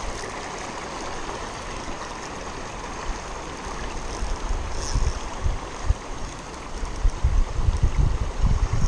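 River water flowing and lapping over the stones at the bank in a steady rush. From about halfway through, wind buffets the microphone in gusts.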